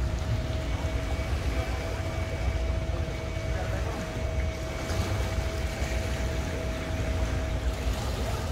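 Personal watercraft idling at a boat ramp: a steady low rumble with a constant hum over it.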